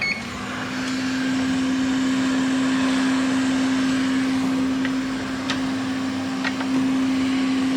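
Hot air rework station blowing from its nozzle with a steady rushing hiss and a low hum, the airflow set high, while reflowing solder to fit a replacement diode on a logic board.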